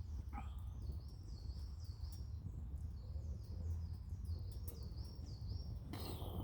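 A small songbird sings a long run of short, high notes, repeated about twice a second, over a steady low rumble. A brief rustling burst comes near the end.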